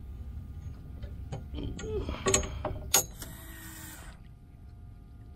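Handling noise on a small boat over a low steady rumble: scattered light clicks and knocks, a brief mutter about two seconds in, then a sharp click about three seconds in followed by about a second of hiss.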